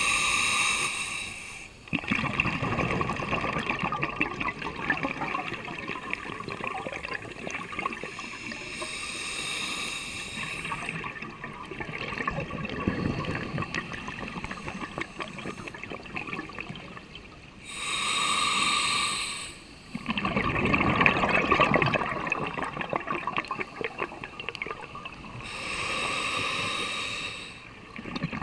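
Scuba diver breathing through a regulator underwater: a hissing inhalation about every eight to nine seconds, four in all, each followed by a long bubbling exhalation.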